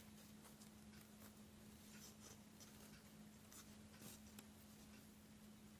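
Near silence: faint rustles and a few soft ticks of twine being handled while a knot is tied, over a faint steady hum.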